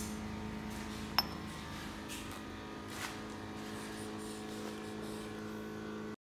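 Steady machine hum in a metal workshop, with a sharp metallic clink about a second in and a smaller knock near three seconds as the turned steel shaft is handled and stood on the lathe's metal carriage. The sound cuts off suddenly near the end.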